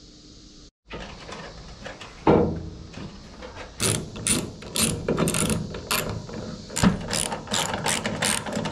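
Ratchet wrench clicking in repeated short runs as a bolt on a pickup's tailgate hinge is turned, starting about four seconds in. A single loud clunk comes a little after two seconds in.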